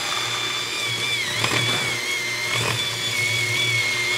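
Breville electric hand mixer running, its beaters creaming shortening, cream cheese and sugar in a stainless steel bowl: a steady high motor whine whose pitch sags briefly twice as the beaters bite into the mixture. The silicone-edged beaters keep it from clattering against the bowl.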